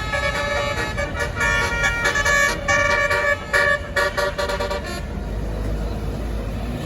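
Tour bus's telolet basuri horn playing a quick tune of multi-tone notes, with short gaps between them, for about five seconds. After that only the bus's engine rumble is left.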